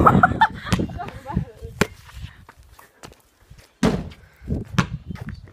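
A basketball bangs sharply off the hoop's backboard about four seconds in, followed by a lighter knock about a second later.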